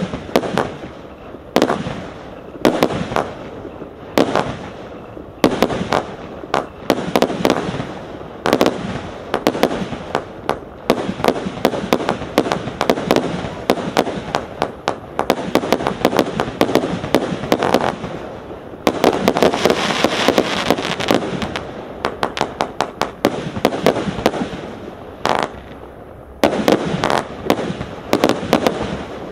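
Hallmark 'Annual Gala' 224-shot compound firework cake firing, shot after shot, each a sharp bang with a short tail, about one a second. About two-thirds of the way through there is a dense run of rapid shots, and a quicker cluster comes near the end.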